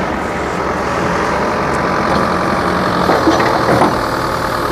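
Backhoe loader's diesel engine running steadily, growing slightly louder as its hydraulics move the rear digging arm.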